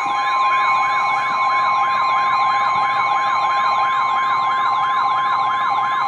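Weather alert alarm from a NOAA Weather Radio receiver: a steady high tone held throughout, with a warbling siren tone sweeping up and down about four times a second over it. It signals an incoming weather warning.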